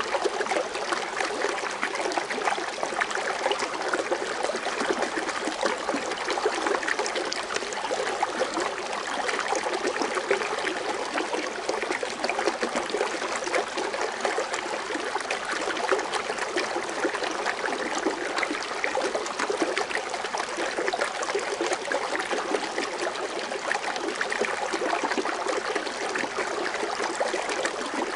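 Small water fountain splashing and bubbling steadily, water foaming as it falls back into the basin.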